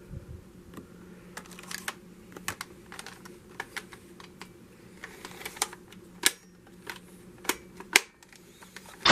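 Light, sharp clicks and taps at irregular intervals, about a dozen, like keys or small hard objects being handled, over a faint steady low hum.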